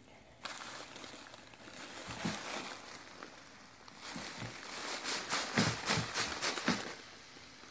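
Rustling and crinkling of a fabric sack of mealworms, packed with newspaper, being handled and tipped over a plastic tub. The sound starts about half a second in and grows louder and busier in the second half, with a run of sharp rustles and light knocks against the tub.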